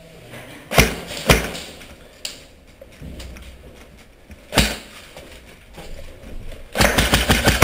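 A few separate sharp knocks, then near the end a sudden, rapid, even string of clicks from an airsoft gun firing in quick succession.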